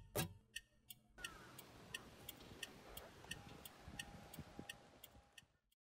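Steady ticking, about three ticks a second, over a faint hiss. It follows the last fading beats of music and stops abruptly near the end.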